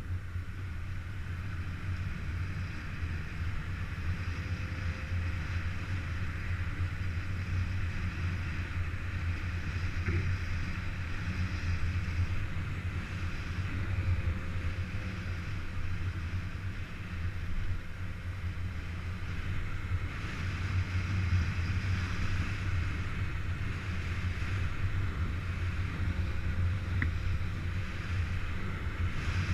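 Motorcycle engine running at a steady speed with no revving, its low drone mixed with wind rushing over the microphone.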